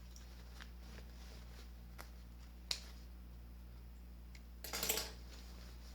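Handling sounds at a sewing machine: a few faint sharp clicks, then a brief scratchy rustle of fabric and nylon webbing being handled about four and a half seconds in, over a steady low hum.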